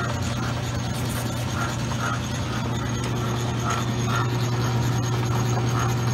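Metal lathe running while turning down the hub of a small toy-train drive wheel: a steady motor hum with faint scattered ticks, and a second faint steady tone joining about three seconds in.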